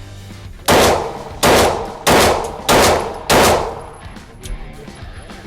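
Glock 17 Gen 5 9mm pistol firing five shots in quick succession, a little under two a second, each with a short echoing tail.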